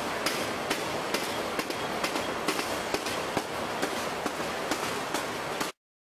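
Corrugated carton box-making machine running, a steady mechanical clatter with a sharp knock about twice a second; it cuts off suddenly near the end.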